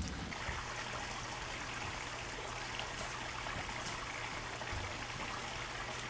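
Steady trickling and splashing of running water from a small backyard waterfall.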